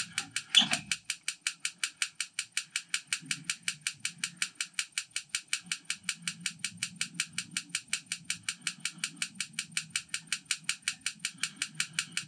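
Automatic piezo igniter of a Truma 3002 gas heater clicking steadily, about six clicks a second, on and on without the burner lighting. The heater does not start: the spark is not reaching the burner, later put down to a dirty or faulty spark electrode.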